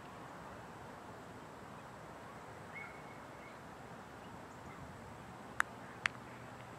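Open-air ambience on a cricket field: a steady low noise with a faint short bird chirp about three seconds in, then two sharp clicks about half a second apart near the end.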